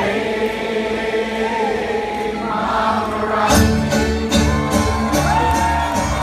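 Live string band of fiddle, banjos, guitars and upright bass playing, with voices singing. Gliding fiddle-like notes ride over the held chords, and about three and a half seconds in the bass and a steady beat come in at full force.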